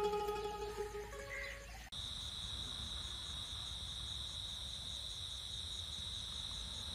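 A plucked-string music cue fades out over the first two seconds. Then crickets chirp in a steady, unbroken trill.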